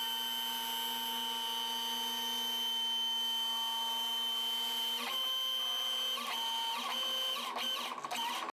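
Electric hoist motor whining steadily as it lifts a truck cab off its frame. The pitch wavers and dips in the last few seconds, and the sound cuts off suddenly near the end.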